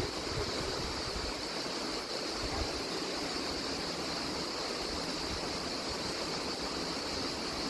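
Steady rush of a river flowing through a rocky gorge.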